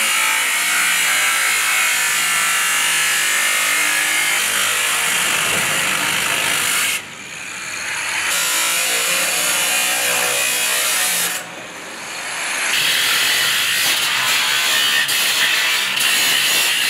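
Angle grinder cutting steel, a steady high grinding hiss. Twice, about seven and about eleven seconds in, the grinding drops away suddenly and builds back up over a second or so.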